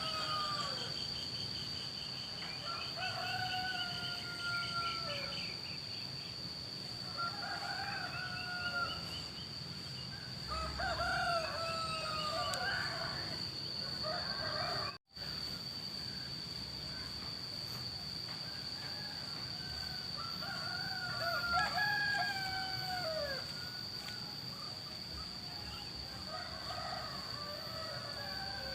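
Several roosters crowing in turn, answering one another, with clucking and small birds chirping in between, over a steady high-pitched hum. The sound drops out for a split second about halfway through.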